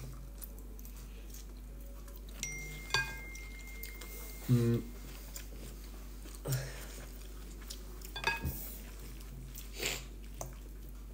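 A person chewing a mouthful of salad, with soft mouth sounds and a couple of short hums. A fork clicks against the bowl a few times.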